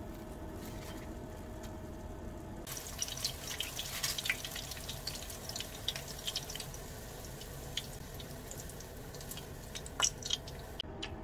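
Shrimp-stuffed shiitake mushroom caps shallow-frying in oil, sizzling and crackling from about a third of the way in. A sharp click near the end as chopsticks turn them in the pan.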